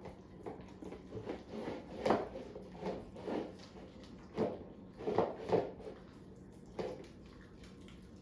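A dog eating from its bowl: irregular knocks and scrapes of the bowl, with chewing and licking between them.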